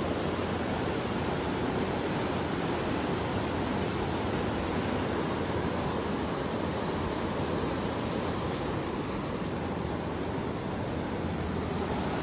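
Steady rushing of flowing creek water, an even wash of noise with no distinct splashes.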